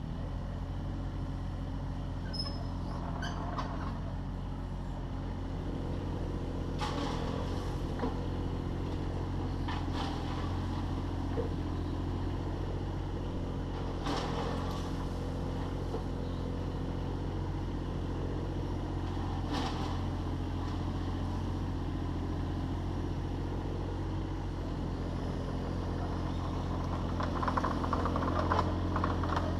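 Takeuchi TB216 mini excavator's diesel engine running steadily while it works, with a few sharp knocks now and then and a short spell of clatter near the end.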